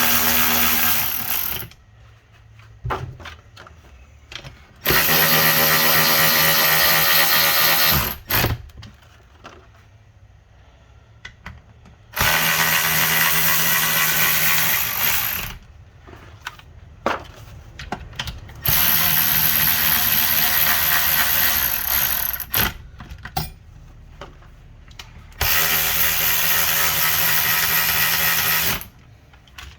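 A handheld power drill/driver running down transmission case bolts, one bolt after another. There are five runs of about three seconds each with a steady motor whine, separated by quieter pauses with light clicks.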